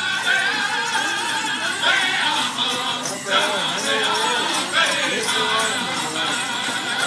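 Sleigh bells on prairie chicken dancers' regalia jingling steadily over powwow drum-and-voice singing.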